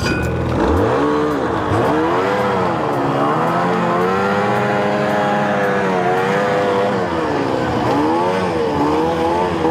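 Lynx Commander 800 snowmobile's two-stroke engine revving as the sleds pull away over snow, its pitch rising and falling again and again with the throttle.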